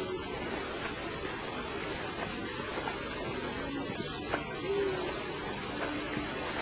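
Steady high-pitched drone of an insect chorus, running on without a break.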